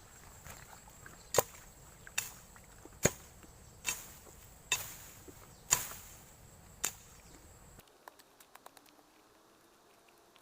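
Seven sharp knocks or chops, about one a second. Near the end the background hiss cuts off abruptly, leaving a few faint ticks.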